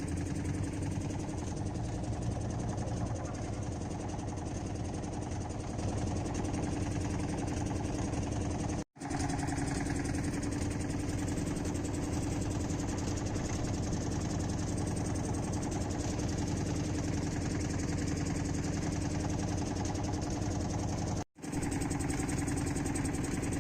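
Boat engine running steadily with a constant drone, broken twice by brief silences about nine seconds in and near the end.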